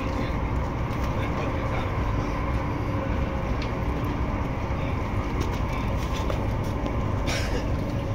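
Steady rumble and hiss of a Fuxing high-speed train heard from inside the carriage as it runs at reduced speed. A brief hiss comes about seven seconds in.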